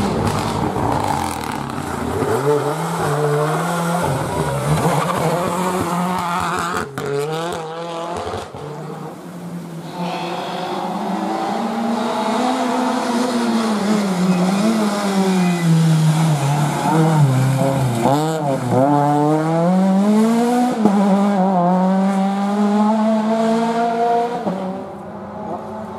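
Rally car engines at full throttle, one car after another, the engine note climbing and dropping with each gear change and lift. There is a sharp crack about seven seconds in.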